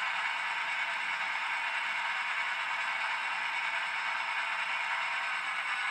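HO-scale model freight train rolling slowly along the track: a steady, even rattle of the hopper cars' wheels on the rails.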